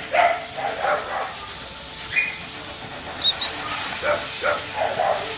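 Dogs barking in short bursts during play: a cluster of barks at the start and another around four seconds in, with a brief high squeak in between.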